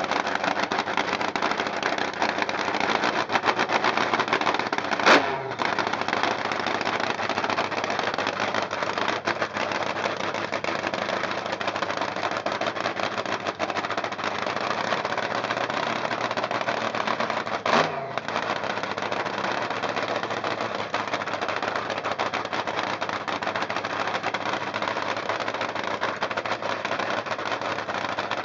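Top Fuel dragster's supercharged nitromethane-burning V8 running at idle, very loud, with rapid, crackling firing through open exhaust headers. Two short, sharp louder bursts come about 5 and 18 seconds in.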